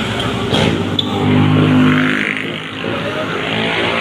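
Motorcycle engines running close by, one growing louder about a second in and easing off again after about two seconds.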